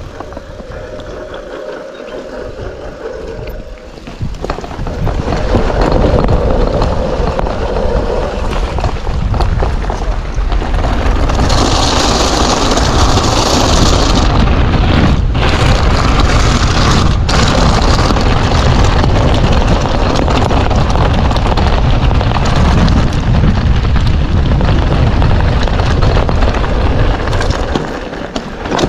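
Heavy wind buffeting and rumble on the microphone while riding a mountain bike, loud from about five seconds in and steady until near the end.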